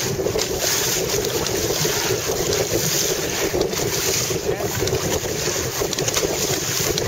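Steady wind noise buffeting the microphone, over water rushing and splashing along the hulls of a Hobie Tandem Island sailing kayak underway in high wind.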